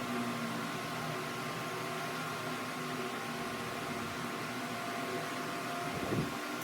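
A workshop machine's motor running steadily with a constant hum of several fixed tones, and one short low thump about six seconds in.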